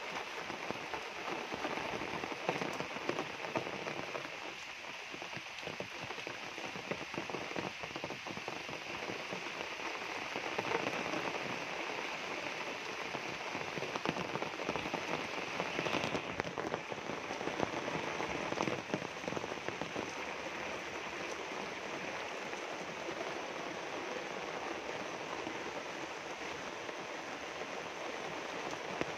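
Steady rain falling on leaves and a puddled dirt path, an even hiss with a patter of drops.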